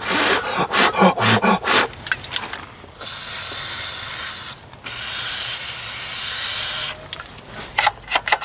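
Short scraping strokes, then an aerosol spray can hissing in two long bursts of about two seconds each, starting about three and five seconds in, coating a small hinge.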